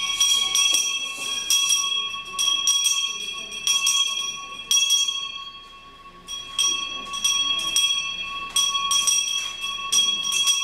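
Handbell rung over and over, about two strokes a second, its clear ringing tone sounding throughout, with a short lull around the middle.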